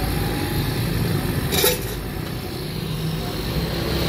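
Jalebi frying in a karahi of hot oil: a steady sizzle over a low, engine-like rumble, with one sharp clink about one and a half seconds in.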